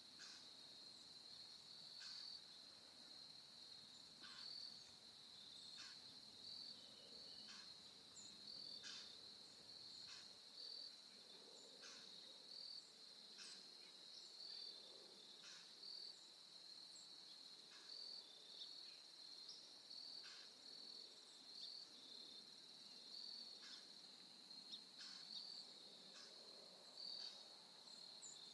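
Faint, steady high-pitched chorus of insects chirping, with short sharper chirps every second or two.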